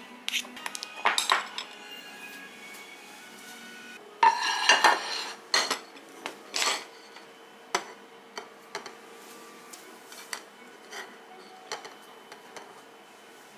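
Metal spoon stirring and scraping in a cut-glass bowl, with light clinks. About four seconds in comes a louder clatter of dishes being set down on a stoneware plate, followed by scattered light knocks and taps of tableware.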